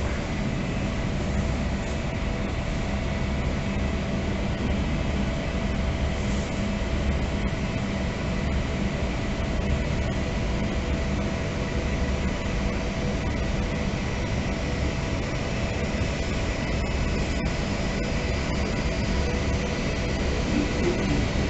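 Steady mechanical drone: a low rumble under a few constant humming tones, unchanging throughout, the kind of noise from jet engines and ventilation machinery at an airport.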